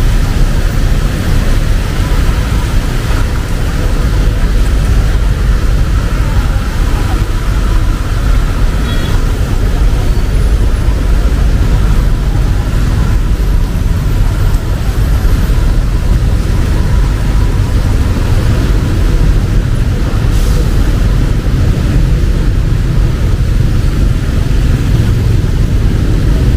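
City street ambience in steady rain: rain falling over the constant sound of road traffic, a dense, unbroken wash of noise.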